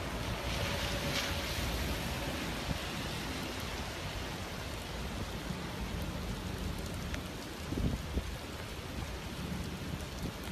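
Steady hiss of rain and running floodwater, with a couple of brief low thuds about eight seconds in.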